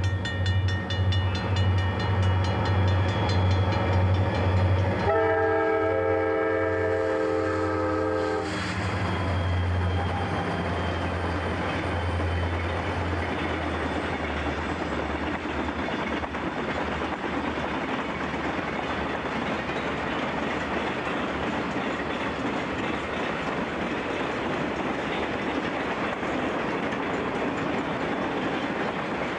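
CSX diesel freight locomotive passing with its air horn blowing, the chord loudest for about three seconds before cutting off, over the engine's low pulsing drone. Then a long string of freight cars rolling by on the rails in a steady rumble with clickety-clack.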